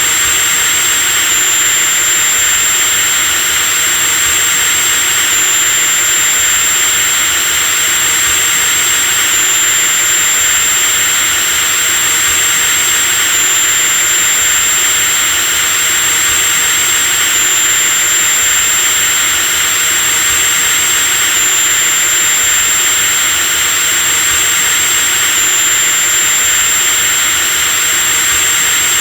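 Electric drill running continuously at steady speed, a loud motor whine with a high, thin tone over an even rushing noise, the pitch stepping slightly about every four seconds.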